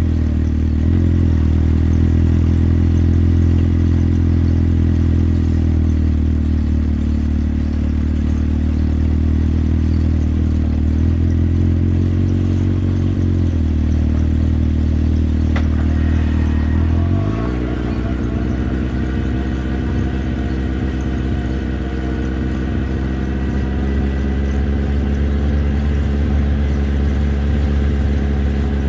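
Motorcycle engine running at a steady riding speed, with small changes in pitch. A little over halfway through, the engine note rises and then holds higher until near the end.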